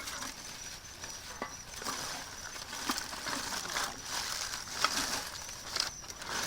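Rummaging through bagged trash and packaged groceries: irregular rustling and crinkling of plastic with light knocks and clatters as items are moved.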